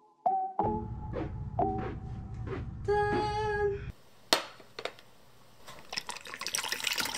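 Background music of plucked melodic notes over a steady low beat, which stops abruptly about four seconds in. It is followed by a sharp knock and then clinking and splashing, like water being poured into a glass.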